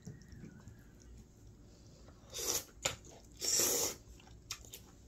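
A person slurping curry-coated pasta noodles off a fork. There are two loud slurps, about two and a half and three and a half seconds in, with quieter chewing and small clicks around them.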